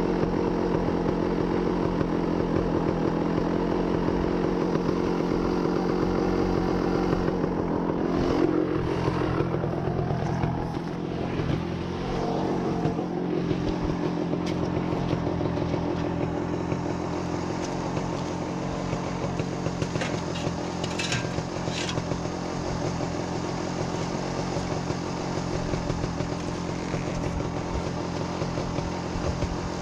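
Dirt-bike engine running steadily, with a rise and fall in pitch about 8 to 12 seconds in, then settling steadier and a little quieter. A few short high clicks come about 20 seconds in.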